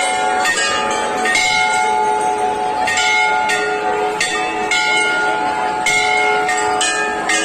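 Hanging temple bell struck again and again at an uneven pace, about ten strokes, each clang ringing on into the next so the tone never dies away.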